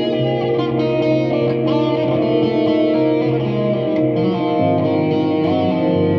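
Electric guitar improvising a melodic solo through effects, over long held low notes that step down in pitch a little past halfway.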